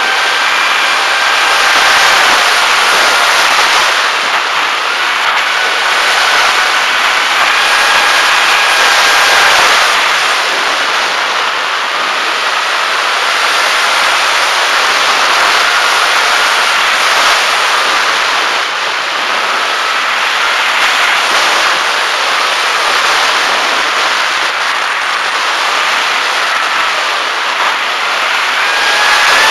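Electric motor and propeller of a Bixler foam RC plane whining in flight, heard from its onboard camera, under heavy wind rush. The whine shifts up and down in pitch several times as the throttle changes.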